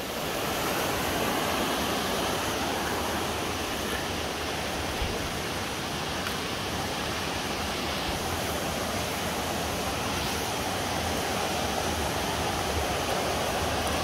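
Steady rush of flowing river water, an even noise that holds level throughout.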